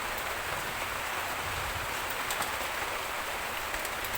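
Steady hiss of water, like rain falling or water running, with a few faint ticks.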